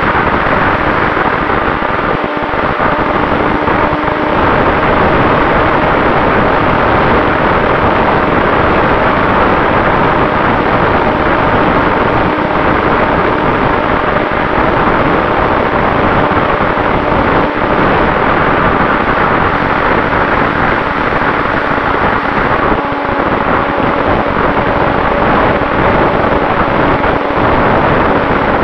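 HobbyZone SuperCub RC plane in flight, heard from its onboard camera: a loud, steady rush of wind over the microphone, with the Turnigy 3536 brushless motor and propeller giving a faint steady hum underneath.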